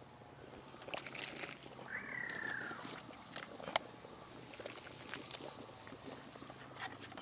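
Faint clinks and soft splashes as chunks of raw katla fish are put into a large pot of boiling curry. A short call falling in pitch, from an animal, about two seconds in.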